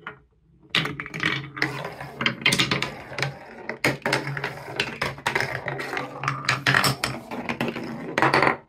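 Marble-run ball rolling down wooden rails and a plastic wave slope: a continuous rattling rumble with frequent clicks as it crosses the track joins and curves. The sound stops suddenly near the end.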